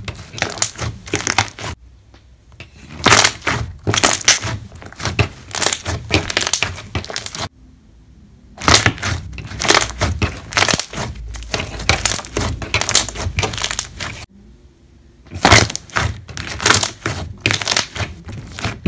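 Hands pressing and squeezing slime against a flat surface, trapped air pockets popping in rapid clusters of sharp crackles, with three short pauses.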